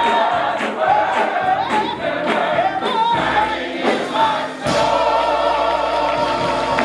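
Mixed gospel choir singing with a lead singer, hand clapping on the beat. About five seconds in the clapping stops and the choir holds a long final chord.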